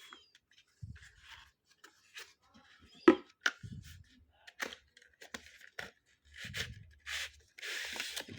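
Cardboard and plastic packaging of a smartphone box being opened by hand: scattered clicks, taps and rustles, with a sharp click about three seconds in and a longer tearing rasp near the end.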